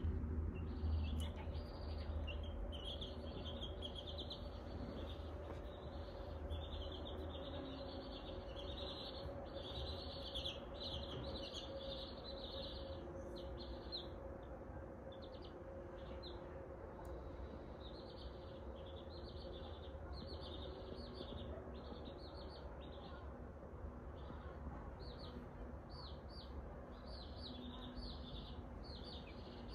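Baby chicks peeping: runs of short, high cheeps, several a second, with a brief lull partway through.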